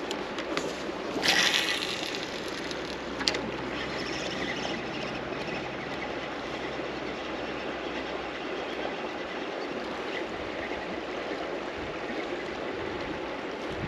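River current rushing steadily past, with a brief louder hiss a little over a second in and a single sharp click about three seconds in.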